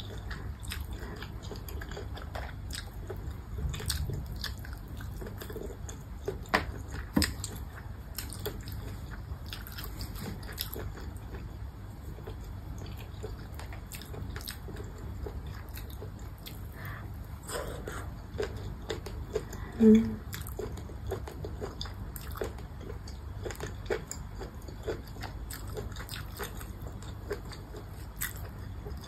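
Close-up chewing and biting of baby squid, with many small wet mouth clicks and smacks. A short hum about two-thirds of the way through is the loudest moment.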